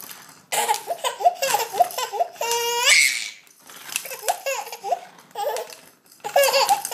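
A toddler laughing in runs of quick giggles, with a long rising squeal about two and a half seconds in, then two more bouts of giggling.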